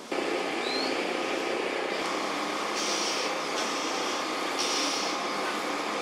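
Dense, steady chorus of cicadas buzzing, with a higher buzzing layer that switches on and off several times from about three seconds in. A short rising chirp near the start.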